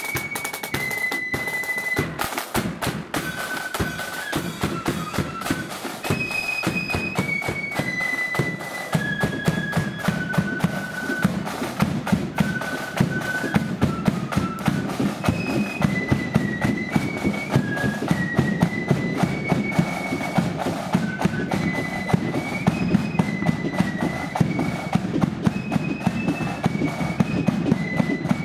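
Marching flute band playing a tune on flutes, the melody moving note by note in a high register, over side drums and a bass drum beating a steady march rhythm; the drumming grows heavier about a third of the way through.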